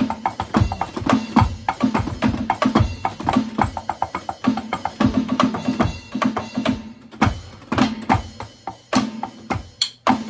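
Drumming on an electronic drum kit heard through its amplified output: a fast, busy beat of many hits, with a brief lull about seven seconds in.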